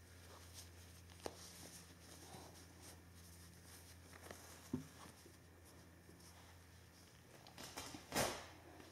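Faint rustling and light ticks of hands handling a fabric sock over a dog's bandaged leg, over a low steady hum, with one louder brief rustle about eight seconds in.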